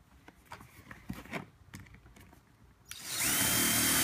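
Handheld electric drill starting up about three seconds in and running at a steady speed with a high whine, boring a hole through a folded coroplast (corrugated plastic) sheet. Before it, a few faint clicks and knocks of handling.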